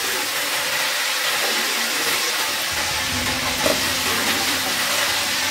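Hot oil sizzling steadily around chicken pieces deep-frying in a kadai.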